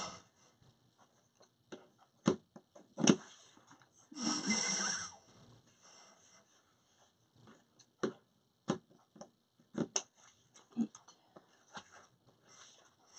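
Quiet handling of craft materials, ribbon and deco mesh: scattered small clicks and rustles, with a louder sharp click about three seconds in and a longer rustle around four seconds in.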